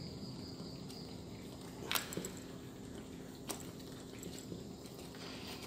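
Two sharp clicks, about two and three and a half seconds in, with a few fainter taps, as a mud crab is handled for cleaning. A steady low hum runs underneath.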